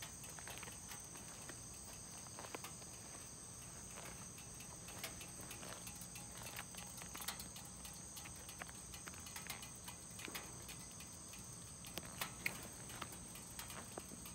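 Insects chirring steadily at two high pitches, with scattered faint clicks and ticks.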